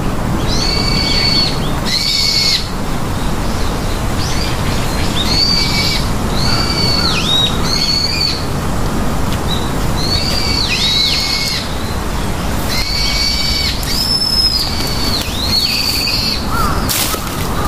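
A bird calling over and over: high, thin calls each held about half a second and dipping at the end, a dozen or so, some overlapping, over a steady low rushing noise.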